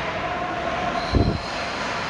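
Ice hockey rink game noise: a steady scraping rumble of play on the ice, with one low thump a little past halfway through.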